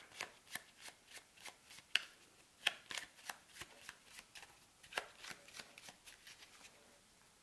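Board-game cards and small game pieces handled on a tabletop: a faint, irregular run of small clicks and taps, two or three a second.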